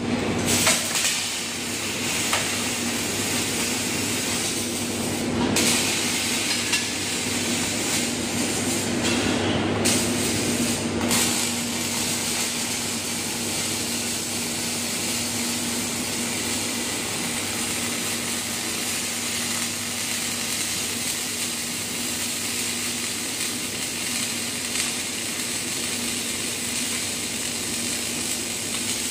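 Robotic MIG welding arc hissing and crackling steadily as the welding robot runs a bead on a steel bracket, with a few brief breaks in the first dozen seconds. A steady low hum runs underneath.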